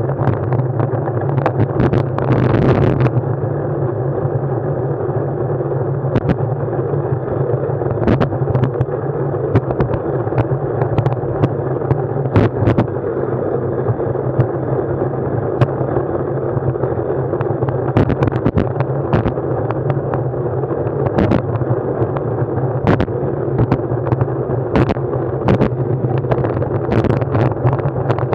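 Steady low drone of a moving ride with many sharp clicks and knocks scattered through it, and a louder noisy rush about two to three seconds in.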